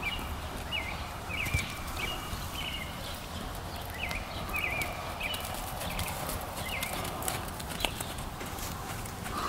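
Hoofbeats of a Quarter Horse gelding loping on a longe line over a soft dirt arena. A faint high chirp repeats about once or twice a second throughout.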